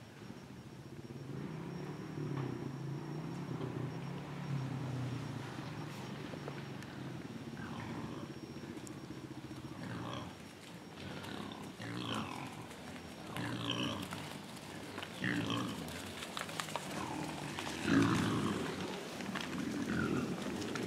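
Wild hogs grunting low and repeatedly, growing louder near the end.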